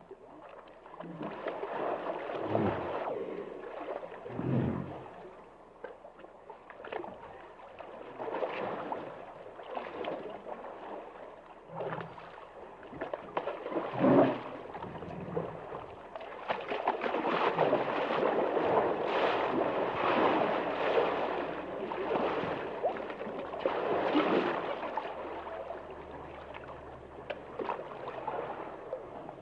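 Hippopotamuses in water: irregular gurgling and sloshing, with a few short, deep grunts, the sharpest about halfway through.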